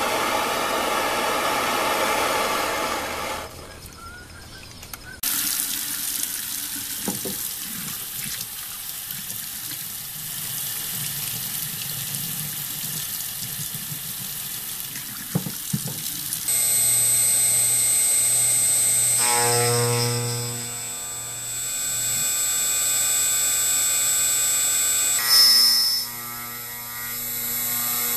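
A steady rushing hiss with a few clicks, then a CNC router spindle running with a steady high whine over a low hum, with a brief louder squeal near the end.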